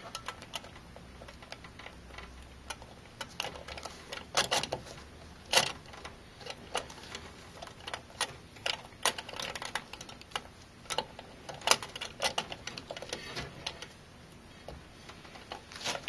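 Irregular small clicks and ticks of plastic as gloved fingers work the protective plastic cap out of an LGA 2011-3 CPU socket.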